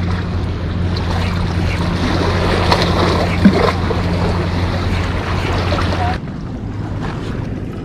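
A boat's motor running with a steady low hum over water lapping and wind, the hum cutting off suddenly about six seconds in. One sharp knock about halfway through.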